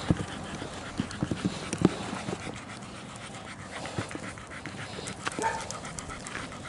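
Small dog panting steadily while trotting on a leash, with a scatter of short knocks in the first two seconds.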